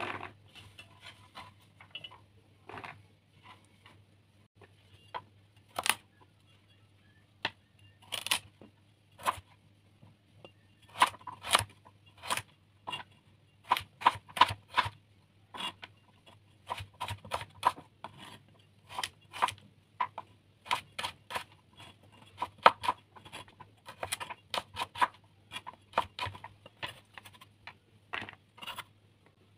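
Large kitchen knife chopping carrot on a wooden cutting board: sharp knocks of the blade striking the board, scattered at first, then quick runs of cuts from about eleven seconds on.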